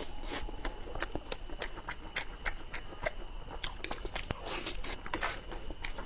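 Close-miked mukbang eating: a man chewing and biting glazed roast meat, with many sharp wet mouth clicks and smacks and a few longer chewing noises.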